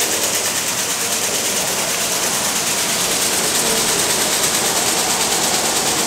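Grain bin unload auger, driven by a GSI electric motor, running with dry corn moving through it: a steady, even mechanical whir and rush, strongest in the treble.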